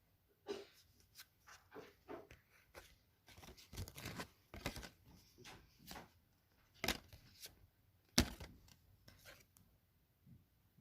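Sports trading cards being flipped through quickly by hand: a run of irregular short rustles, slides and snaps, the sharpest about eight seconds in.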